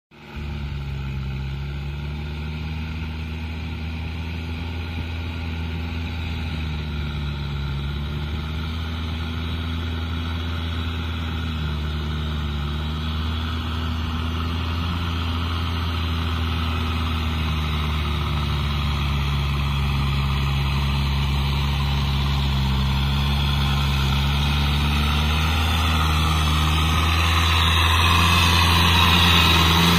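Kubota tractor's diesel engine running steadily under load while it tills a flooded, muddy field, growing gradually louder as it comes closer. Near the end, water and mud churned by the wheels and rotary tiller add a rising splashing rush.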